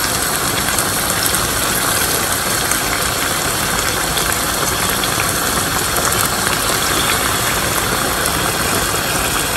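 A steady stream of hot water is poured from a kettle into a pan of chicken curry to make the gravy, splashing into the pan without a break.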